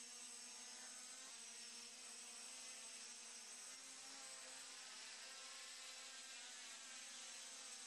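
Faint, steady buzz of a small quadcopter's brushless motors and propellers in flight, the pitch wavering slightly as the motor speeds adjust.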